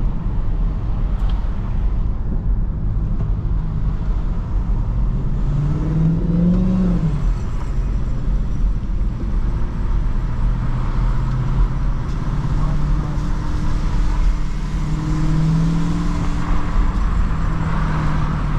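Dodge Charger Hellcat's supercharged 6.2-litre V8 running under light load in slow traffic, with a short rise in revs about six seconds in and then a steady drone over road noise.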